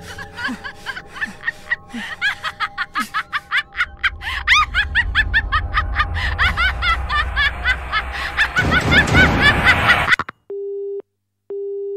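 Quick, high-pitched giggling that grows faster and louder over a sustained music drone and a swelling low rumble, cut off abruptly about ten seconds in. Then a telephone busy tone beeps twice.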